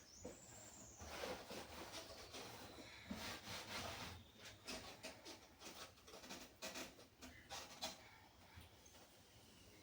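Faint rubbing and scraping with many short clicks and knocks. A brief high chirp falls in pitch at the very start.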